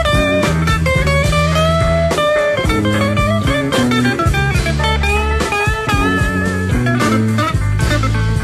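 Slow electric blues recording in an instrumental break: a lead guitar plays bending notes over bass and a band.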